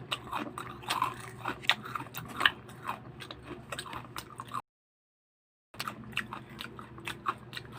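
Crunchy chicharon (deep-fried pork and chicken intestine cracklings) being bitten and chewed close to the microphone: many short, sharp crackles. The sound cuts out completely for about a second midway, then the crunching resumes.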